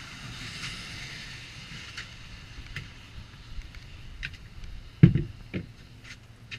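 Scattered clicks and knocks of handling on a fibreglass boat, with one loud thump about five seconds in and a smaller one just after, over a steady outdoor hiss.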